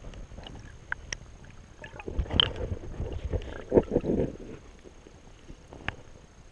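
Water splashing and sloshing in a shallow river, loudest in a cluster of irregular splashes a couple of seconds in, with scattered sharp clicks and knocks around it.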